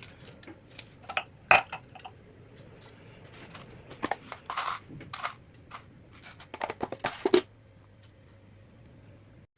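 Kitchen utensils and ingredients being handled during recipe preparation: a string of sharp knocks, clinks and rustles. The loudest come about a second and a half in and again between four and seven and a half seconds, then they stop.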